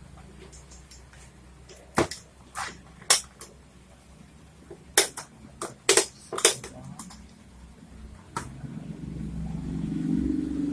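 About a dozen sharp clicks and knocks at irregular intervals, of small hard objects being handled, then a low hum that swells near the end.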